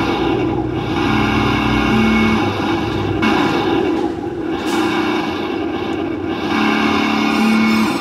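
A 1:10-scale RC dump truck running as its transmitter sticks are worked: a steady mechanical drone whose pitch steps up and down every second or so.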